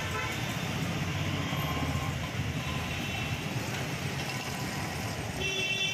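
Busy city street traffic: a steady low rumble of passing cars, with a vehicle horn sounding briefly near the end.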